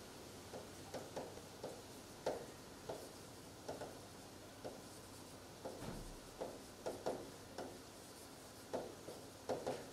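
Stylus tapping and rubbing against an interactive whiteboard's screen as handwriting is written out: a string of short, faint taps and brief strokes at an irregular pace.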